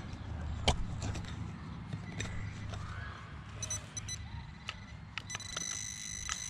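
Digging in rocky soil for a metal-detector target: scattered sharp clicks of the digging tool striking stones and dirt, over a low rumble. Near the end a steady high electronic tone from the metal detector sounds on the target.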